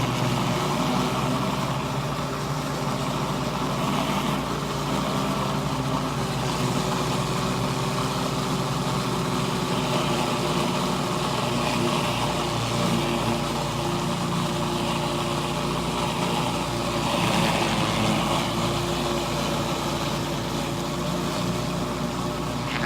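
Pressure washer engine running steadily under load, with the hiss of water spraying from a surface cleaner on concrete.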